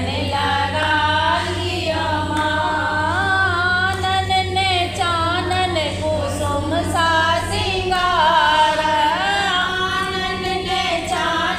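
A group of women singing a devotional folk song to the goddess together, in phrases that rise and fall in long sung lines.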